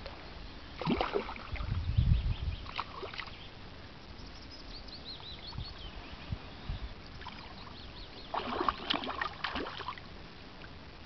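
A hooked fish thrashing at the surface beside a boat, water splashing in short bursts about a second in and again around three seconds in, then a longer flurry of splashes near the end.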